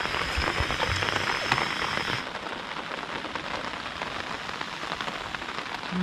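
Heavy rain pattering on a tent's fabric, heard from inside the tent as a steady hiss. A higher hiss over it cuts off suddenly about two seconds in.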